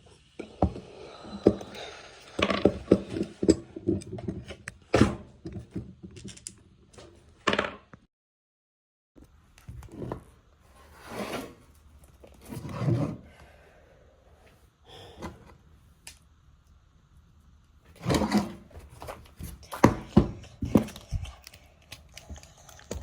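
Irregular clicks, taps and knocks of a small hand tool and hard plastic RC truck suspension parts being handled while a screw is taken out, with a few duller rustles. The sound drops out completely for about a second, some eight seconds in.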